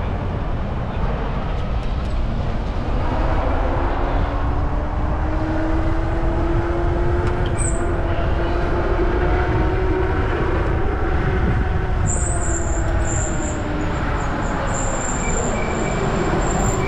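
Riding an EUY F6 electric bike: heavy wind and road rumble on the camera's microphone, with the motor's faint whine rising and falling slowly with speed. A thin high-pitched tone comes in about twelve seconds in.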